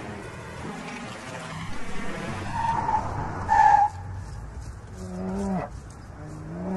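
A car driving round a mountain bend with its tyres rushing on the road, giving two short tyre squeals about two and a half and three and a half seconds in, the second the loudest. Near the end come two low drawn-out animal calls.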